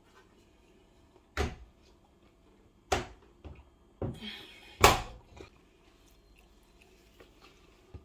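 Handling knocks and clunks on a front-loading washing machine's porthole door, a handful of separate knocks, the loudest about five seconds in as the door is pushed shut.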